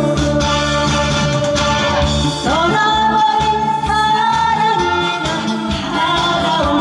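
Woman singing a Korean song through a handheld microphone over amplified backing music; about two and a half seconds in her voice swoops up into a long held note.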